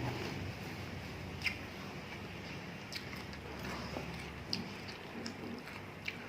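Someone eating bakso meatball soup close to the microphone: soft chewing with a few sharp clicks about a second and a half apart, over a steady low hiss.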